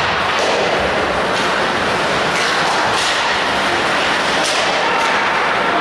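Ice hockey skates scraping and carving on the rink ice, with a continuous rasp and several sharp swishes as players stride and turn.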